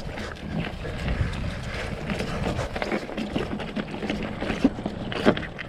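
Hardtail mountain bike ridden over a dirt trail: tyre noise and the frame and drivetrain rattling, with a few sharp knocks near the end.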